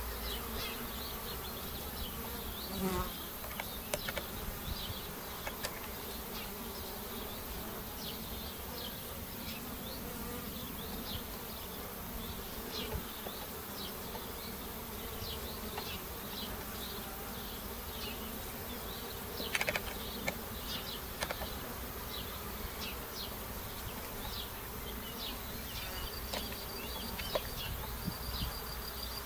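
Honeybees buzzing at a Warré hive entrance as foragers fly in and out, with many short high chirps scattered through it and a couple of light knocks. A steady high trill joins near the end.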